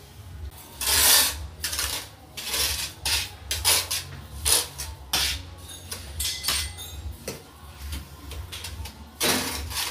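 Steel trowel scraping and spreading tile mortar across the back of a ceramic tile: a run of irregular scrapes about half a second apart, the loudest about a second in.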